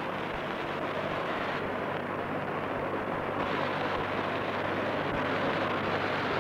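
Crowd noise from a mosque congregation during a live recitation: a dense, steady murmur with no clear words that grows slightly louder. A low electrical hum from the old recording runs under it.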